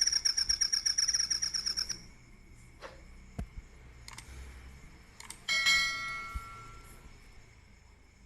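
A played-back animal call: a loud, rapid pulsing trill that stops about two seconds in. A few faint clicks follow, then a short ringing chime about five and a half seconds in that fades away.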